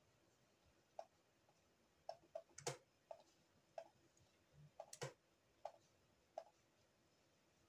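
Computer mouse clicking: faint, short clicks at uneven intervals, about one a second, with two sharper, louder clicks near a third of the way in and about two-thirds in.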